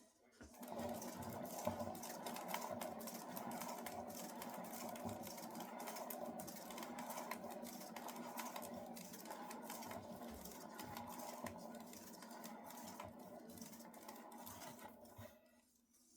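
Spinner turning a paint-covered canvas to spin the poured paint outward: a steady whirring with fast clicking that starts about half a second in and stops near the end.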